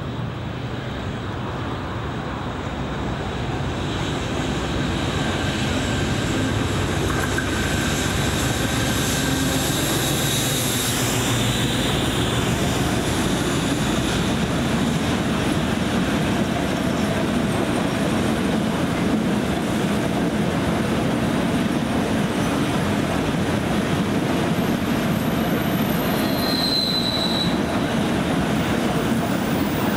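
Freight train of hopper wagons hauled by a diesel locomotive passing, a steady rumble and clatter of wagon wheels on the rails. Brief high-pitched wheel squeals come about 11 and 26 seconds in.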